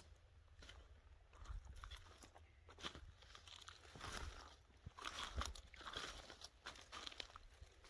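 Faint footsteps crunching through brush and undergrowth in an uneven walking rhythm.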